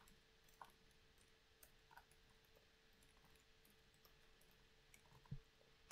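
Near silence: room tone with a faint steady hum and a handful of faint, scattered clicks.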